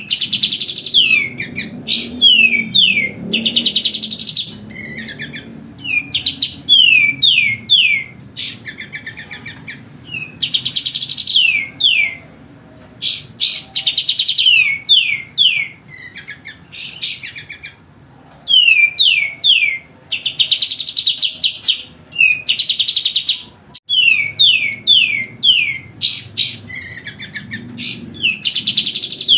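Kapas tembak bulbul singing nonstop: loud phrases of quick, sharply falling whistled notes mixed with buzzy chattering, repeating every second or two.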